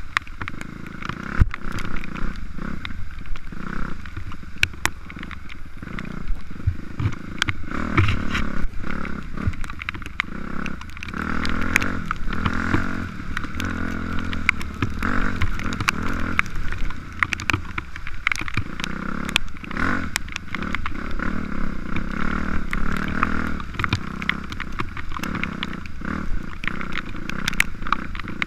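Dirt bike engine running under way, its pitch rising and falling with the throttle, with many short clicks and knocks scattered throughout.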